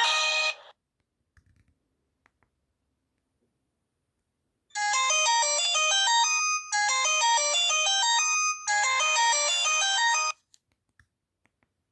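Ringtone melody played on a Nokia 2760 Flip phone. A tune cuts off just after the start; after a few seconds of quiet with a few faint clicks, the melody plays again for about five and a half seconds in three phrases with short breaks, then stops.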